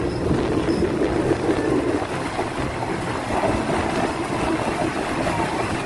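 Passenger train running steadily along the track, heard from an open carriage window: an even rumble with rushing air.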